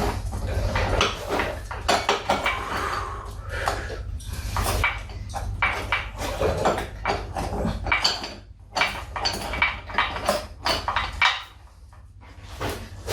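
Steel motorcycle primary-drive parts, the compensator sprocket pieces and primary chain, clinking and clanking irregularly as they are handled and fitted, with short metallic rings.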